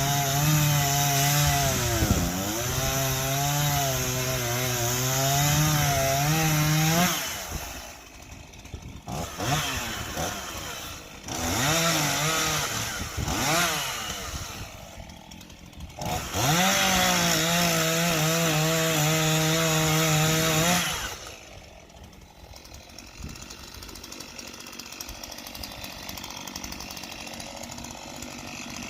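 Stihl chainsaw running at full throttle through a cut, its pitch sagging under load about two seconds in. It drops off and is revved in short blips, runs flat out again for several seconds, then falls back to a much quieter level about 21 seconds in.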